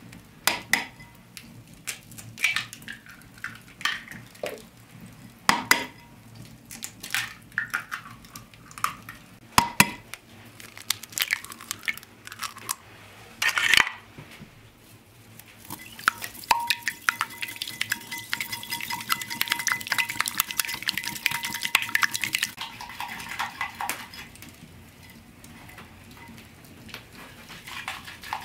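Eggs cracked on the rim of a glazed earthenware mixing bowl, with sharp clicks and knocks of shell and pottery, then beaten in the bowl: a dense, rapid scraping for several seconds past the middle that slows near the end.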